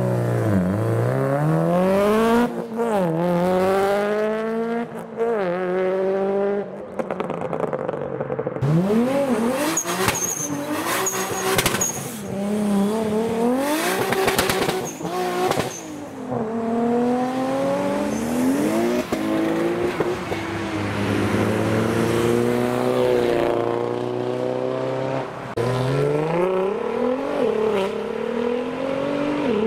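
Modified cars accelerating hard away one after another, their engines revving up and dropping with each gear change. In the middle comes a run of sharp cracks from the exhausts.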